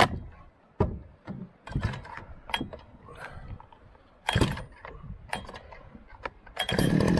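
Scattered knocks and clatters, then near the end a small outboard motor starts and runs steadily with a buzzing drone.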